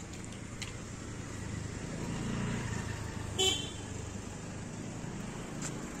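Steady road traffic noise, with one short toot of a vehicle horn about three and a half seconds in.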